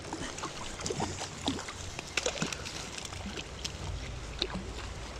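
Water sloshing and splashing with scattered small clicks, and a low wind rumble on the microphone coming in near the end.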